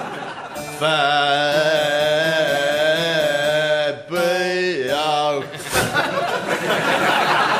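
Male voices singing a long held note in a cappella style, then a short falling phrase, with a burst of noise in the last second and a half.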